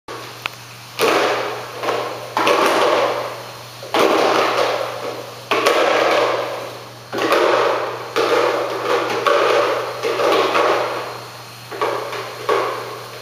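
A chimpanzee making noise with a red plastic tub held against its mouth: a series of about ten sounds, each starting abruptly and fading away over about a second.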